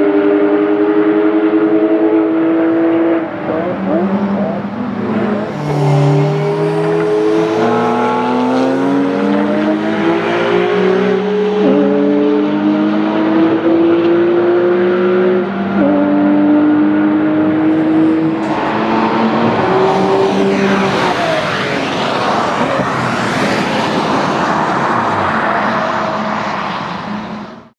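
Porsche 997 GT3 flat-six racing engines accelerating hard through the gears: the engine pitch climbs, drops at each upshift, then climbs again, with several cars overlapping. About 18 seconds in, a nearer car takes over, with more tyre and wind rush and sweeping engine pitch. The sound cuts off suddenly at the very end.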